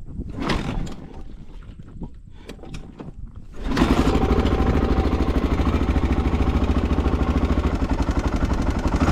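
Honda XR600R dirt bike's big single-cylinder four-stroke engine, which comes in abruptly about three and a half seconds in and runs at a steady idle with evenly spaced low pulses. Before that there are only a few scattered quiet clicks and knocks.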